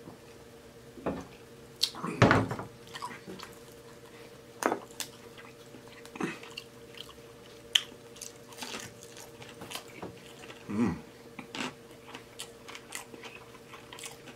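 Close-miked chewing and mouth sounds from eating a fried pork and vegetable wonton: scattered wet clicks and smacks, with a louder low thump about two seconds in. A faint steady hum runs underneath.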